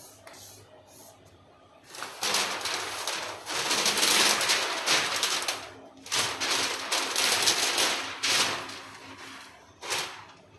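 Marker pen scratching and butter paper rustling under the artist's hands as he inks a design. There are two long stretches of scratchy noise of about three to four seconds each, then a short one near the end.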